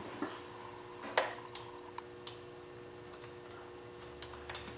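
Scattered light clicks and taps of a replacement alternator pulley and its fittings being handled at the alternator shaft. The sharpest click comes about a second in and a few more cluster near the end, over a steady low hum.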